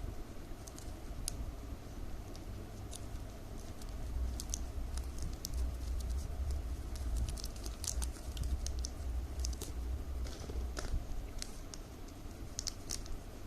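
Plastic strips cut from milk powder bags crinkling and clicking as they are folded and woven by hand: an irregular scatter of small sharp crackles over a low rumble.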